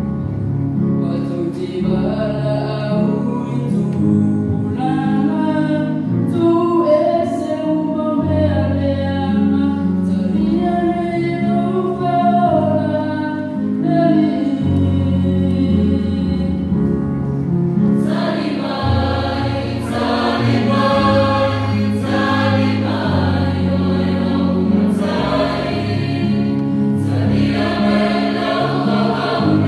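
Mixed choir of men's and women's voices singing a hymn together, the sound growing fuller partway through.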